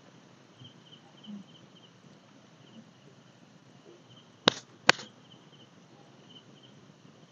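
Night insects, such as crickets, chirping in a faint, evenly pulsing trill. A little past the middle come two sharp cracks about half a second apart, the loudest sounds here.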